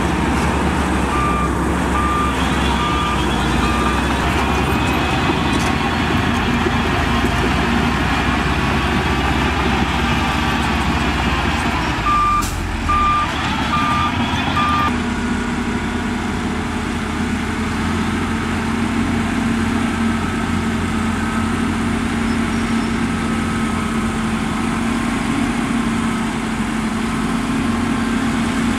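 Heavy diesel engines of a bulldozer and a dump truck running, with a reversing alarm beeping about once a second in two sets of four, the second set about twelve seconds in. From about fifteen seconds in, an engine drones steadily at one pitch.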